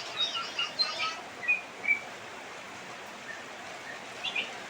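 Steady hiss of heavy rain with birds calling through it: a quick run of chirps and whistles in the first second, then a few short separate whistles and another call near the end.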